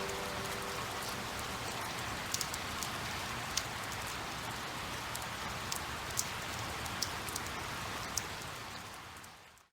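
Steady rain falling, with scattered louder drops pattering through it. It fades out near the end.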